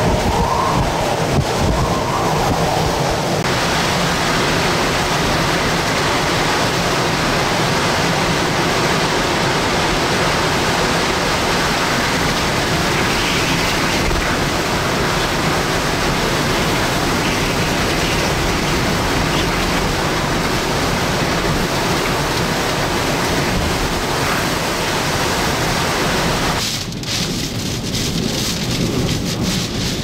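Hurricane-force wind howling with driving rain: a loud, dense, unbroken rush. Its character changes abruptly a few seconds in and again near the end.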